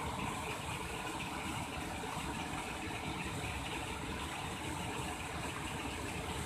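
Muddy floodwater pouring over the edge of a submerged concrete causeway and churning in the swollen river below, a steady rushing of water.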